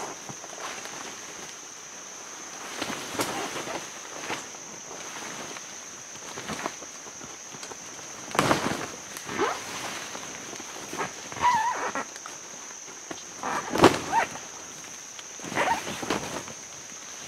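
Footsteps and rustling through wet brush and mud: a scatter of irregular crunches and swishes, louder and closer together in the second half.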